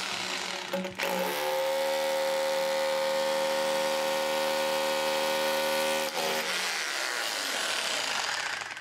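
Metabo KHE 2443 800-watt SDS rotary hammer drill boring a 6 mm hole into concrete: the motor winds up about a second in, runs at a steady pitch, and winds down about six seconds in, followed by quieter noise.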